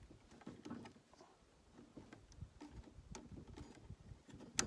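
Faint clicks and rustling of nylon trimmer line being fed through and wound into a DR trimmer mower's head, with one sharp click about four and a half seconds in.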